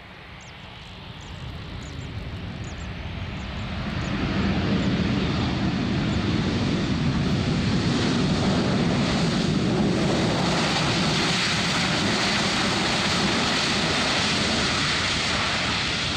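Jet engines of a Boeing 737-800 during its landing rollout. The noise swells over the first four seconds and then holds loud and steady, easing slightly near the end.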